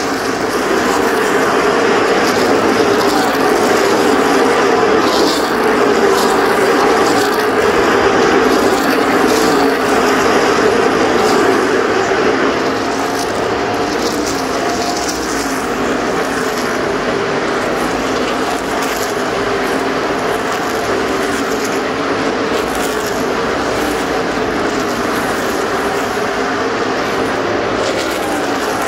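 A field of NASCAR V8 stock cars racing around the oval, making a continuous loud engine drone. The pitch sweeps as cars go past the grandstand, and the sound is a little louder over the first dozen seconds.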